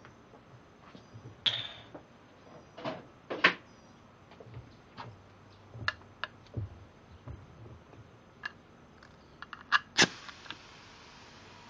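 Tools and metal air fittings handled on a workbench: scattered light clicks and knocks. About ten seconds in comes a sharp metallic click as an air gun is fitted to the hose's quick-connect coupler, followed by a faint steady hiss.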